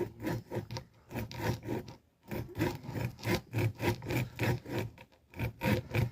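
Back-and-forth sawing strokes on a coconut's hard husk, a rhythmic rasping at about three strokes a second, pausing briefly about two seconds in and again near the end.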